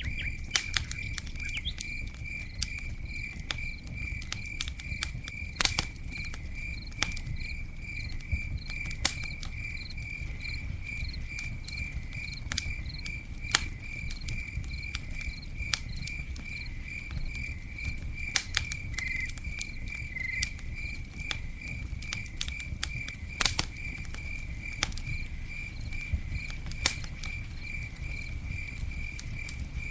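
Campfire crackling, with sharp irregular pops over a low steady rumble of the burning wood. A cricket chirps steadily about twice a second throughout.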